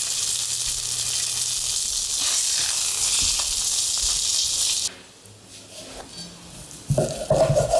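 Chicken breast and chopped garlic sizzling in oil in a frying pan, a steady hiss; the sizzling cuts off about five seconds in. Near the end a few loud, short sounds begin.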